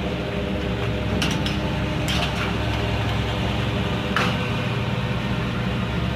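Vehicle engine running steadily, with a few short rattles or clanks, about a second in, around two seconds in and about four seconds in.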